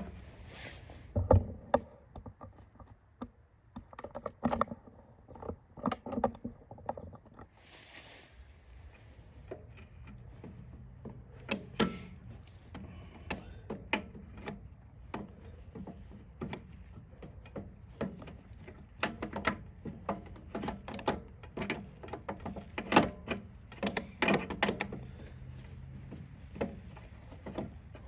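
Irregular clicks, knocks and light rattles of a snowblower's electric starter being handled and worked back into place, with a few sharper knocks among them.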